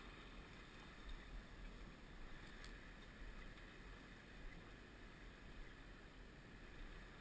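Near silence: a faint, even wash of calm sea water against shore rocks.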